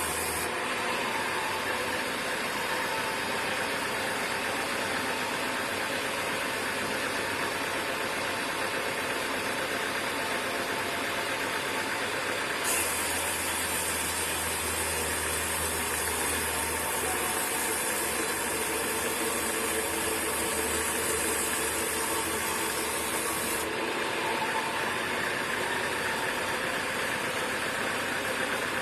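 Sawmill machinery running steadily, an even engine-like drone. The sound changes abruptly about halfway through and again later on.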